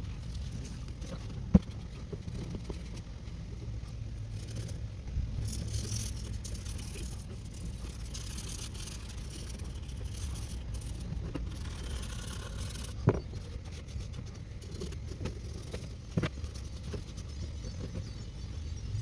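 Metal exhaust parts being handled and wiped clean: rubbing and scraping through the middle of the stretch, with a few sharp knocks as parts are moved or set down.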